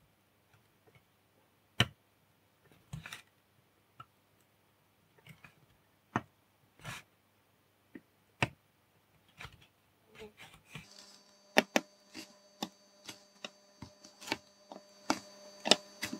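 Faint, irregular clicks and light taps as a soldering iron tip and solder wire touch the pads of small surface-mount LEDs on a PCB, soldering the second side of each LED. About eleven seconds in a faint steady hum with a high whine begins and the clicks come faster.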